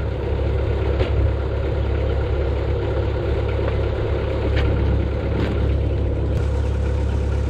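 Bobcat S185 skid steer's diesel engine idling steadily, with a few light clicks and knocks as the operator climbs out of the cab.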